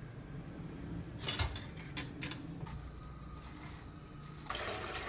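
Sharp clicks and knocks of a plastic salt container and a glass handled over a stainless steel sink, a few of them between one and two seconds in, then a steady hiss sets in near the end as salt is poured from the glass into the drain.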